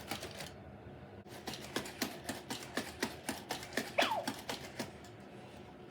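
Aibo robot dog walking on a hard floor: a regular run of footfall clicks, about four a second, with one short falling squeak about four seconds in.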